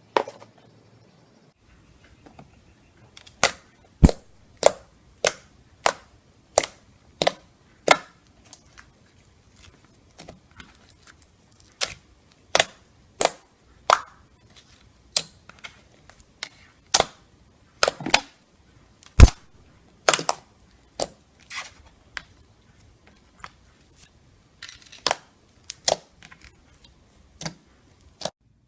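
Slime being pressed and squeezed by hand, giving a long series of sharp popping clicks as trapped air pockets burst, at times evenly about one pop every two-thirds of a second.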